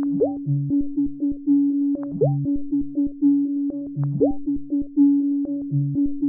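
Electronic synthesizer background music: a steady held note under a repeating pattern of short notes, with a rising swoop about every two seconds.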